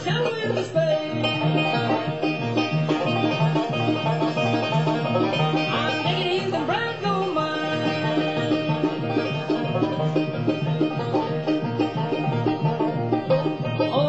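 Bluegrass band playing: banjo rolls over mandolin, acoustic guitar and bass with a steady beat. A high tenor voice slides up in pitch near the start, again about six seconds in, and near the end.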